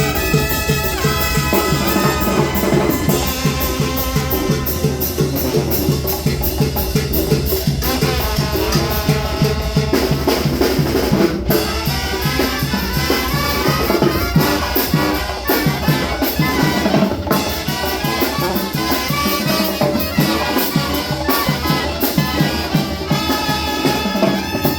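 Mexican banda music: brass with trumpets over drums and percussion, playing a steady, driving beat.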